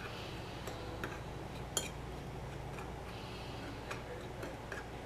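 A fork stirring a dry seasoned breading mix in a glass bowl: soft scraping with scattered light clicks of the fork against the glass, and one sharper click a little under two seconds in.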